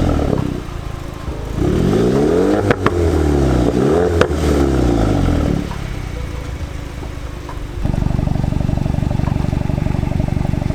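VW Polo GTI's turbocharged four-cylinder engine on its stock exhaust, revved twice while standing, the pitch rising and falling each time, with sharp cracks as the revs drop. It then settles to idle, which turns louder and steadier about eight seconds in.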